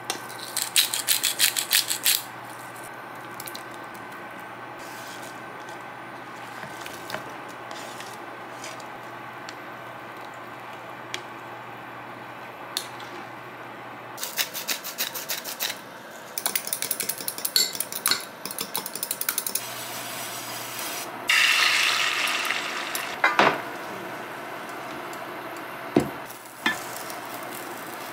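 Kitchen cooking sounds: a wooden spoon stirring and knocking in a pot of stew, with a few bursts of clattering. A short sizzling hiss comes about three-quarters of the way through, and a couple of sharp knocks follow near the end.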